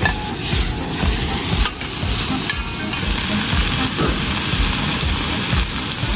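Shredded pork and green peppers sizzling steadily as they are stir-fried in a pan, with irregular knocks from the stirring.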